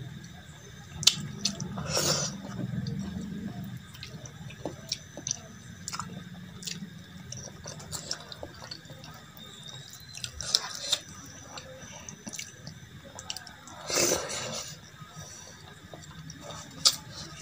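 Wet squelching and sticky clicking as bare fingers mix rice into runny dal on a steel plate, mixed with close-up chewing. A few louder wet smacks stand out, about a second in and again near the middle and toward the end.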